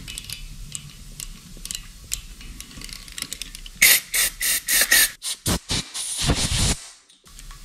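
Aerosol spray can squirting into a tapped hole in an engine block: a quick run of short hisses about four seconds in, then a longer spray that stops shortly before the end. Before it, faint clicking of a hand tap being turned in the hole.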